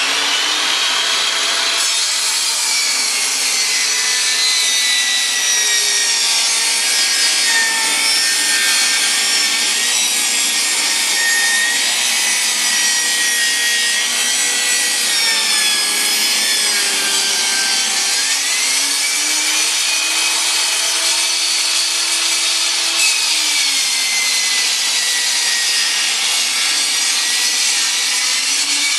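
10-inch table saw running and ripping a long, wide board: a steady cutting noise over the blade's whine, which sags in pitch and recovers a couple of times along the cut.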